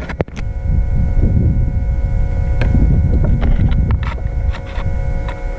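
Low rumble of wind on the microphone over the steady whine of a bass boat's electric trolling motor, with a few light clicks.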